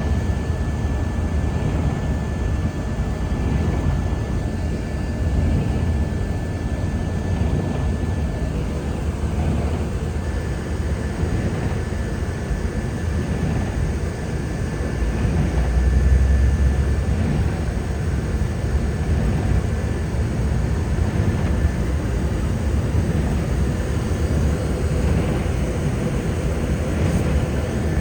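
Car driving at highway speed, a steady low road and tyre rumble heard from inside the cabin, swelling briefly just past the middle.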